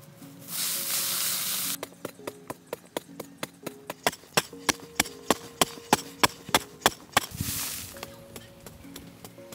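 A hand digging tool chopping into dry, sandy soil in a steady rhythm, about three blows a second. Twice the chopping gives way to a longer hiss of loose dirt being scraped and tossed aside.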